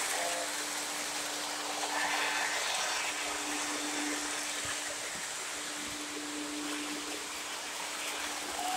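Lionel O gauge model trains running on the track: a steady rolling hiss with a constant hum underneath.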